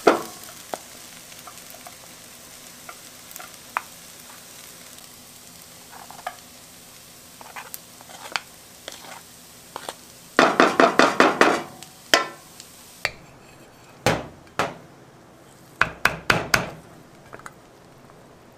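Wooden spoon scraping and tapping against a wok and an oval metal mold as fried rice is scooped and packed, over a faint sizzle from the pan. About ten seconds in comes a quick run of about six loud scrapes, followed by several sharp knocks spread over the next few seconds.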